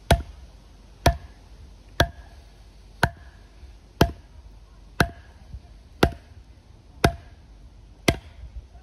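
Wooden baton striking the spine of a Terävä Skrama 240 knife that is wedged in a branch: nine sharp knocks, about one a second, driving the blade through the wood across a knot (batoning).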